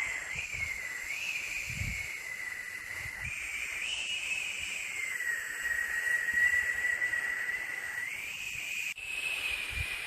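Steady hissing white noise with a whistling tone in it that drifts slowly up and down in pitch. There is a brief dropout about nine seconds in.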